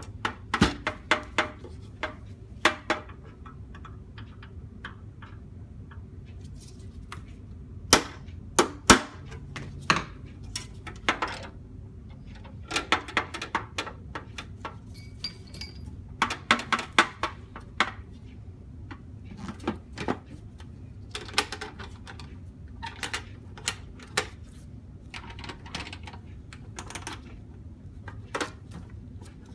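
Sheet-metal toolboxes and their hardware being handled in a small room: irregular sharp clicks and light metallic clanks in short clusters, over a steady low hum.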